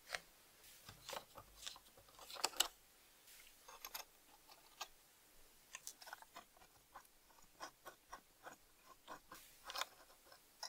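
Small metal socket driver working a rusty nut on the terminal post of an antique battery tester. It makes faint, irregular clicks and scrapes of metal on metal, with louder clusters about two seconds in and near the end.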